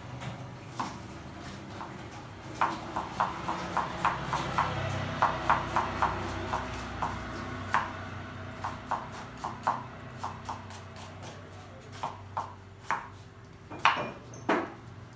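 Chef's knife chopping on a wooden cutting board: a quick run of knocks, about three or four a second, then slower, scattered cuts, with the two loudest near the end. A low steady hum lies underneath.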